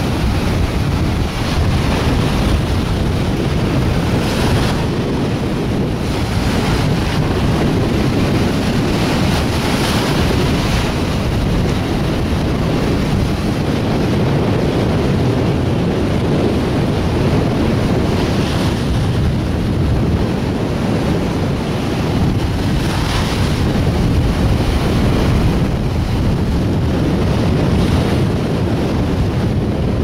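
Sea surf breaking on a sandy beach, mixed with strong wind buffeting the microphone: a steady rushing noise with a louder wash of surf every several seconds.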